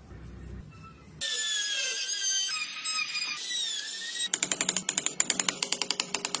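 A small power tool cutting or grinding wood: after a quiet second it starts with a high whine that wavers in pitch. About four seconds in, this gives way to a fast, even rasping rhythm of about ten strokes a second.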